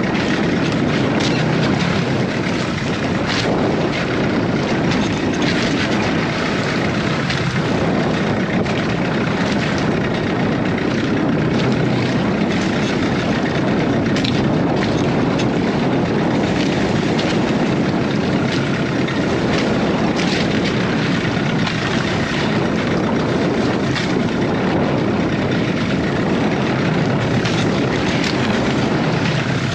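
Boat engine running steadily at a constant speed, kept going to hold position in a strong current, with scattered crackles over it.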